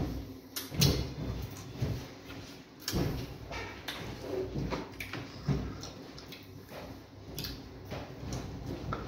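Close-up eating sounds of fufu and vegetable soup eaten by hand: chewing, lip smacking and fingers being licked, with scattered clicks and soft knocks, the sharpest about a second in.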